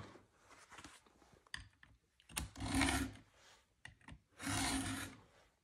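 A Stihl 2-in-1 chain sharpener rasping across a chainsaw cutter tooth in two firm push strokes, each under a second. The round and flat files sharpen the cutter and take down its depth gauge in the same stroke. A few faint clicks come before the strokes as the tool is seated on the chain.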